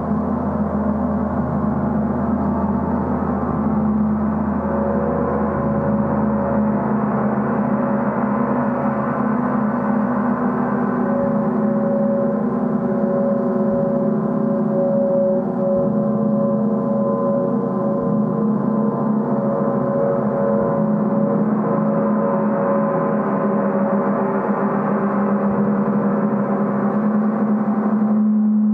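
Large gong on a stand kept sounding as a gong bath: a steady, dense wash of many overlapping tones with no sharp strikes. Higher ringing tones come in a few seconds in and swell and fade over it.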